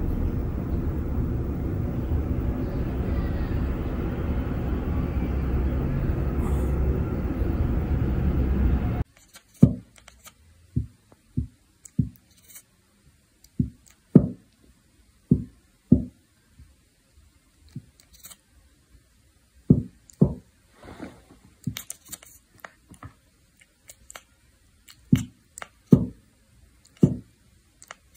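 A steady rumbling noise for about nine seconds, then it stops abruptly and a Devon Rex cat chatters: scattered short, soft clicks of its jaw, about one a second and irregularly spaced.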